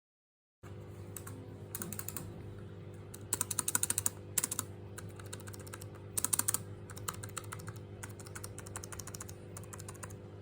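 Typing on a Zebronics wireless keyboard with scissor-switch keys: a stream of light, quick key clicks, with faster runs about three and a half and six seconds in. A steady low hum runs underneath.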